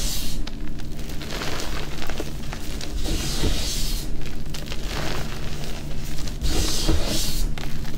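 Hands pressing, squishing and raking through a heap of crushed gym chalk powder, with a soft crunch and hiss that swells each time the hands press down, about every three and a half seconds.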